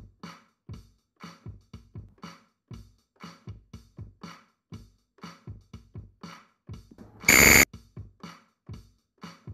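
Quiz countdown-timer music: a quiet, quick electronic drum beat, broken about seven seconds in by a short, loud buzzer tone that marks the time running out.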